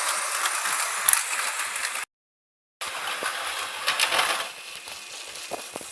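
Toy train running along its track, a steady rattling noise that cuts to dead silence about two seconds in, returns under a second later, and grows quieter near the end.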